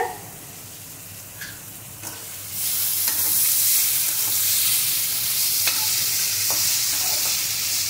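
Thin-cut potatoes sizzling as they fry in a metal kadai, stirred and turned with a slotted metal spatula that clicks and scrapes against the pan. The sizzle jumps louder about two and a half seconds in, once the potatoes are turned, and stays steady.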